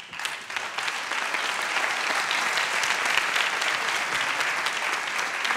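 An audience applauding, breaking out at once and keeping up steadily.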